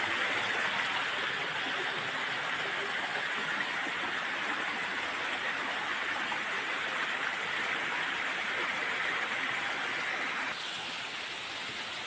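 Running water from a small waterfall and the rocky stream below it: a steady rushing hiss that drops a little about ten seconds in.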